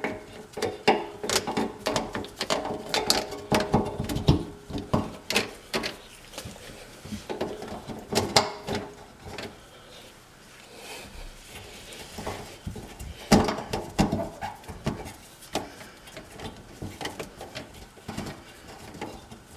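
Plastic kitchen-sink drain pipes and fittings being handled and fitted together: repeated knocks and clatter, with a few short squeaky scrapes as the parts slide and rub.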